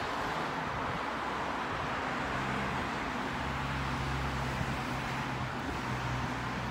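Steady road traffic noise, with a low, steady engine hum from a vehicle coming in about two seconds in.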